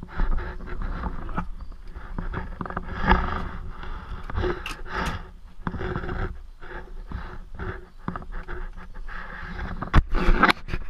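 Wind rumbling on the microphone of a camera carried on a ride, with irregular knocks and rattles.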